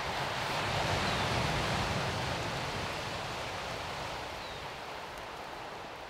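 Steady outdoor rushing noise of a coastal forest, fading out slowly.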